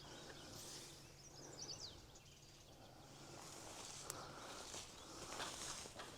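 Faint outdoor background with a few short bird chirps about a second in, and soft rustling footsteps through grass in the second half.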